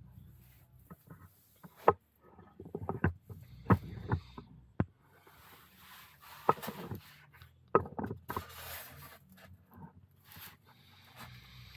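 Scattered knocks and clicks, about half a dozen sharp ones, with short bursts of rustling in between, like hands and a camera being moved about; a faint low hum sits underneath.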